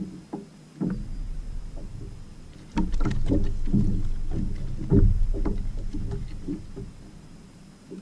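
Clicks and knocks of unhooking a small fish held in a lip gripper on a kayak, thickest in the middle, over low rumbling that swells suddenly about three and five seconds in.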